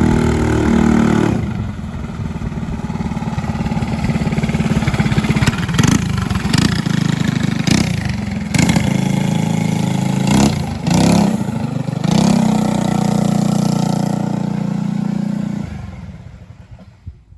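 Go-kart's small four-stroke engine idling and revved several times with the throttle pedal, dropping back to idle each time: a test that the throttle returns freely and does not stick. It fades out near the end.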